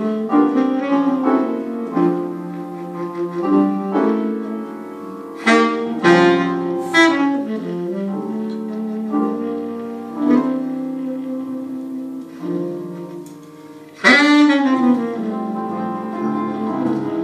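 Live jazz duo of saxophone and piano: the saxophone plays the melody in held notes over piano chords, with a few loud accented notes about a third of the way in and a strong, loud entry after a brief drop in level near the end.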